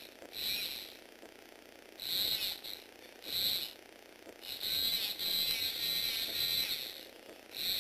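Small electric motor whining as it drives a Lego Technic gripper's gears, opening and closing the claws in several short runs of under a second and one longer run of about two and a half seconds.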